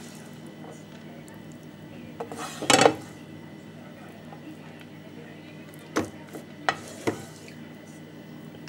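A spoon scraping minced meat out of a non-stick frying pan, with one loud scrape about three seconds in, then a few sharp taps of the spoon against the pan.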